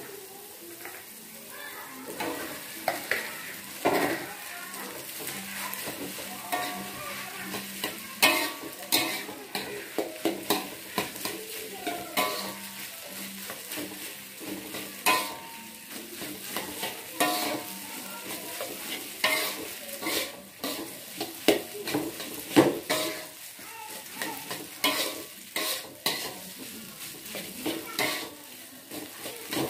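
Metal spatula scraping and clacking against a wok as rice is stir-fried with egg and chili paste, with the oil sizzling underneath. The clacks come irregularly, several a second at times.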